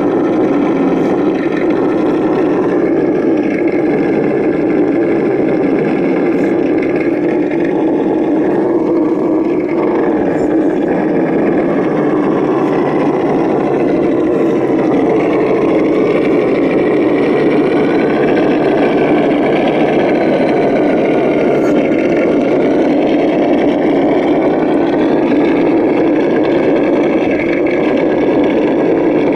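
Simulated V8 engine sound for an RC scale crawler, running steadily with small rises and falls in pitch as the truck creeps through the mud.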